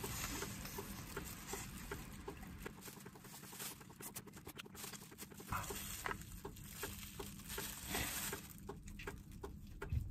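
Close-up eating sounds of a whole braised chicken: biting, tearing meat from the bone and chewing, with many small irregular wet mouth clicks.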